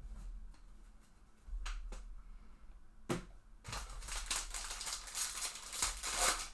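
A trading-card pack's foil wrapper being torn open and crinkled. A few separate sharp clicks come first, then a dense crinkling rustle from a little past halfway to the end.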